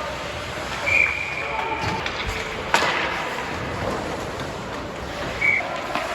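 Ice hockey rink sounds during play: a steady din of skating and crowd noise, with one sharp crack of a puck or stick strike about three seconds in. A short high tone sounds about a second in and again briefly near the end.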